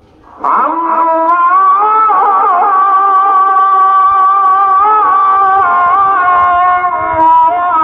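Music starts abruptly about half a second in: a long, held melodic line with wavering ornaments.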